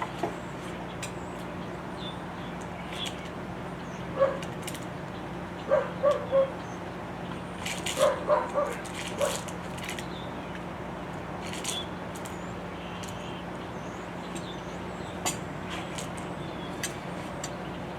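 A dog barking in short yips, in small bursts of two or three, over a steady low hum, with scattered sharp clicks and taps.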